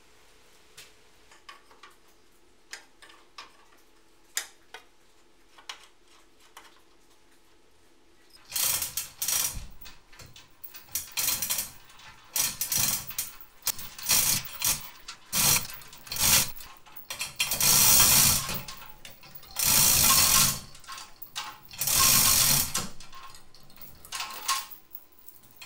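A manual chain hoist lifting an engine: the hand chain is pulled hand over hand, rattling through the hoist in loud bursts of about a second each, after some faint scattered clicks at first.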